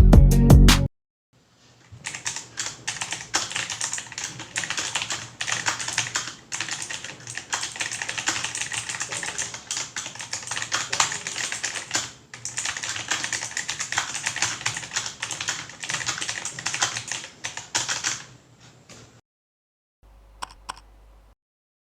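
Fast typing on a Quantum QHM9800 mechanical keyboard with clicky blue switches: a dense, uneven clatter of keystrokes that stops near the end, followed by a couple of faint clicks.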